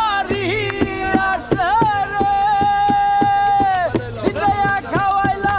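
A man singing, holding one long note through the middle before going back to shorter phrases, over a steady hand-beaten rhythm of about four strokes a second on an upturned plastic tub.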